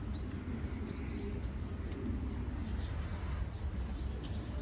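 Outdoor ambience: faint bird calls over a steady low rumble.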